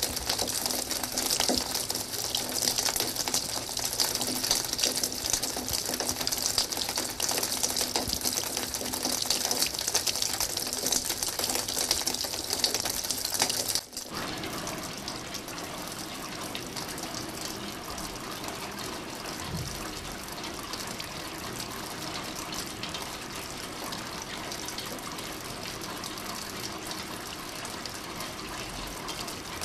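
Heavy rain on a window pane, a dense patter with many sharp drop hits. About halfway through it cuts to a softer, steadier hiss of rain falling outside.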